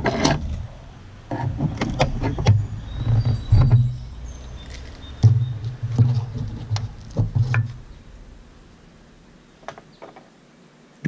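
Old, dried-out duct seal putty being pulled and picked off a service entrance cable at the meter box connector by hand: irregular rubbing and scraping with close handling noise and several sharp knocks, going quieter in the last few seconds.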